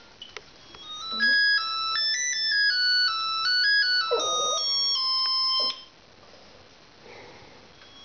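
Mobile phone ringtone playing a quick electronic melody of short stepped notes. It starts about a second in and cuts off abruptly after about five seconds.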